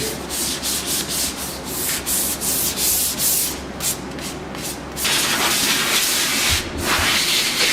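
Compressed air hissing from a blow gun in short irregular bursts, blowing debris off a bike frame before powder coating, then a longer steady blast from about five seconds in.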